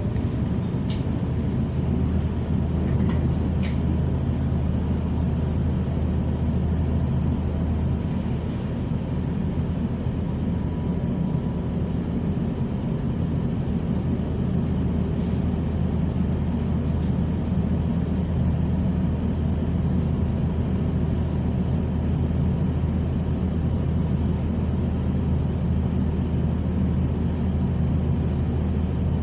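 Steady drone of a New Flyer XN40 natural-gas transit bus heard from inside, its engine and road noise running on without a break, with a few faint clicks.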